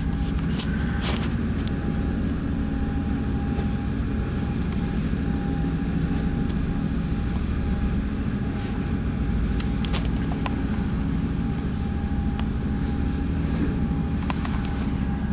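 Motorboat engine running steadily under way, a constant low drone with a thin steady whine above it, and a few short sharp knocks scattered through.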